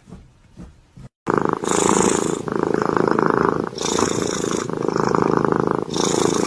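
Tiger cub purring while its belly is stroked: a steady, fast-pulsing rumble that starts about a second in and comes in phrases of about a second each, alternating with its breaths in and out.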